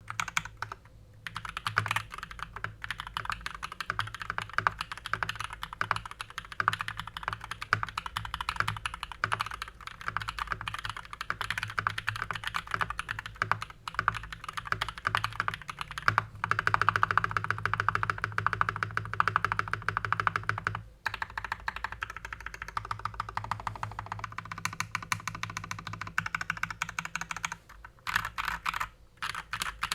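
Typing on a Rakk Lam Ang Pro mechanical keyboard with Glorious Panda tactile switches lubed with Krytox 205g0 and doubleshot ABS keycaps: a steady stream of keystrokes. The typing goes faster and a little louder for a few seconds past the middle, with brief pauses near the start and about two-thirds of the way in.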